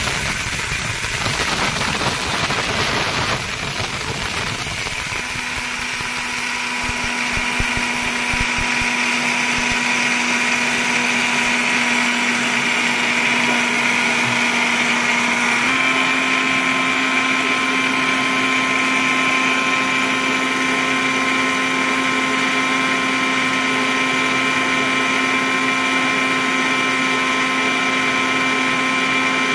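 Preethi Zodiac 2.0 1000-watt mixer grinder running, grinding dry rice in its steel jar. It sounds rough and gritty for the first several seconds, then settles into a steady motor whine that steps up slightly in pitch about halfway through.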